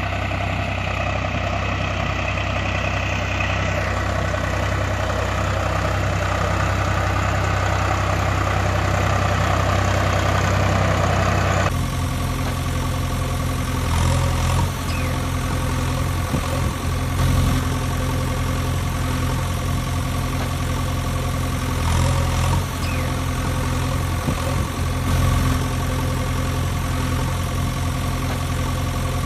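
Recorded engine idling steadily, changing abruptly to a different, deeper engine idle about twelve seconds in.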